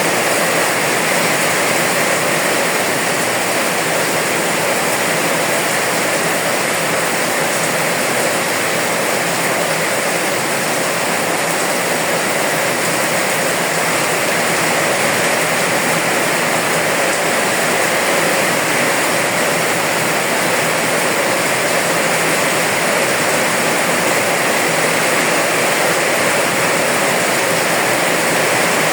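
Steady, heavy rain: a dense, even hiss with no breaks or separate drops standing out.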